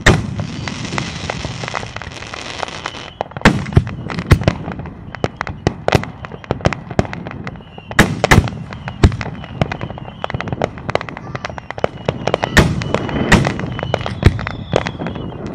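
Aerial fireworks display: shells burst in quick succession with many sharp bangs, and a dense crackling hiss fills the first three seconds or so.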